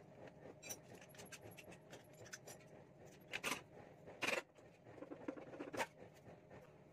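Light metal clicking and clinking of tools and loose parts as the CVT cover of a carburettor Honda Beat scooter is taken off, followed by three louder short scrapes about halfway through, the loudest a little past four seconds in.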